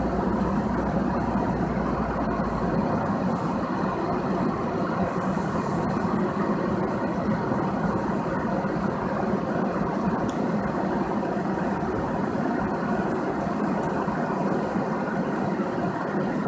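Steady road and engine noise inside a moving car's cabin, with a deep low rumble that drops away about three seconds in.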